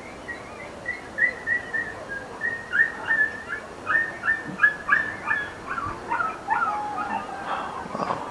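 A dog giving a long run of short, high yelps and whines, two or three a second. A brief knock comes near the end.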